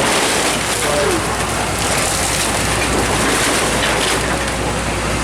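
Building demolition: a steady rushing, crackling noise of debris breaking and falling, with a few faint short squeals.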